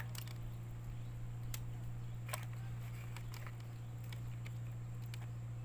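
A steady low hum, with a few light clicks and taps as a fishing hook and line are handled by hand.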